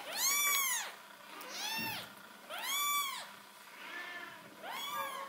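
Very young kittens mewing: about five high-pitched mews, each rising and then falling in pitch, the first the loudest.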